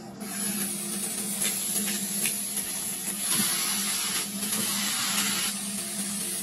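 Ground beef sizzling in a hot frying pan as it is smashed flat into burger patties under a saucepan pressed on parchment paper. The sizzle starts right at the beginning and swells and eases several times, with a few light clicks.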